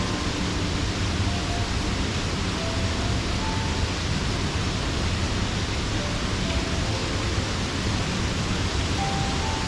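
A waterfall's steady rushing, full and even with no change in level.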